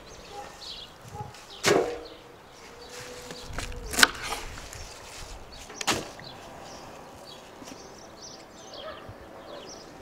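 Three sharp knocks about two seconds apart, the loudest in the middle, as things are set down on a wooden table while fresh greens are handled.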